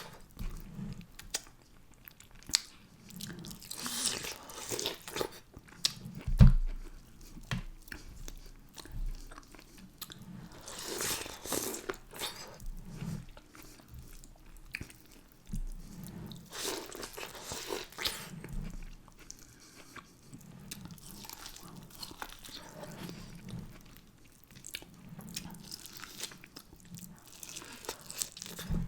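Close-miked chewing and biting of food from a mussel, potato, corn and egg boil, with a steady run of soft chews and a few longer wet mouth sounds. One sharp knock sounds about six seconds in.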